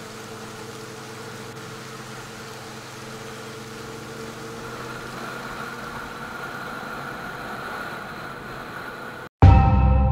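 Motorcycle engine running at a steady cruise, with wind and road noise, heard from a camera on a riding bike; its note rises slightly past the middle. Near the end it cuts off abruptly and loud music starts.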